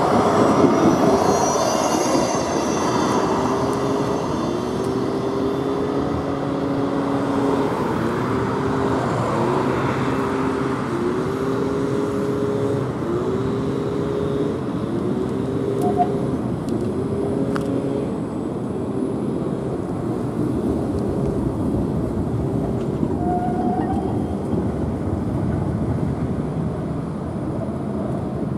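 Škoda 26T low-floor tram running by over a steady rumble. A high whine falls away in the first seconds, then a mid-pitched tone rises and falls over and over, about every one and a half seconds.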